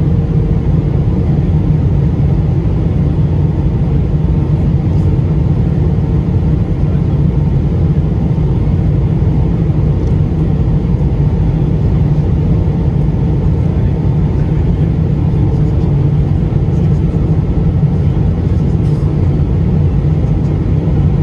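Steady cabin roar of a jet airliner in flight, engine and airflow noise heard from a passenger seat, deep and unbroken.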